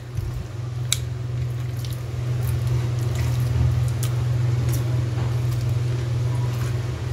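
Raw chicken strips being handled and dropped into a bowl, wet squishing with a few short clicks, over a steady low hum.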